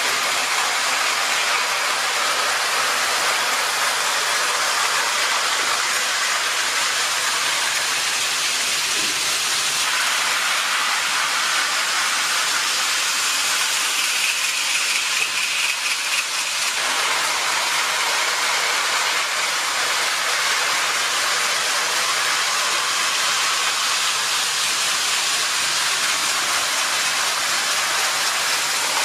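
O-scale tinplate model trains running on three-rail metal track: a steady rushing rattle of metal wheels on tinplate rails. Around the middle a higher tone rises over it for a few seconds as an electric locomotive passes close, then cuts off suddenly.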